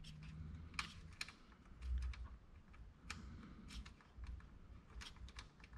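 Faint, irregular small clicks and taps of hands fitting a wire's ring terminal onto the positive post of a bus bar, with metal parts knocking lightly against one another.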